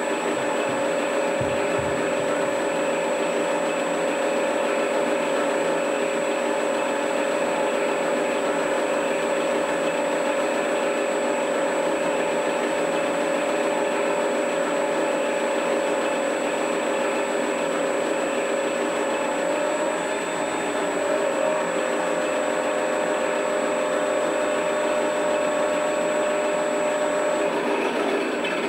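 A sound module in an RC model Yak-12 plays a simulated aircraft engine running steadily through its small speaker, a steady droning note. The pitch wavers briefly about twenty seconds in.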